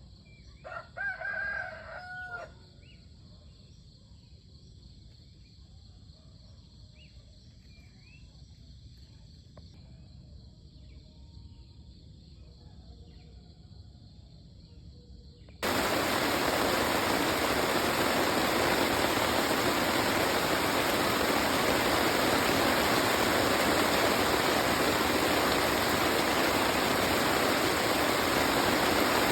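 A rooster crows once, about a second in, over faint steady insect chirping. About halfway through, a loud, even rushing noise starts abruptly and continues.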